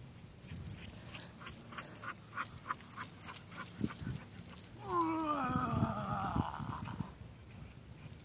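A dog gives one drawn-out whining call about halfway through, lasting about two seconds and falling in pitch. Before it, a run of faint light clicks, a few a second.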